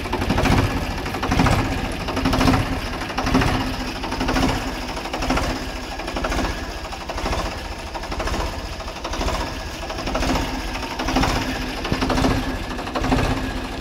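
Diesel tractor engine idling, its exhaust going straight into a large rubber balloon taped over the upright silencer pipe. The rapid chugging swells and dips in level about once a second.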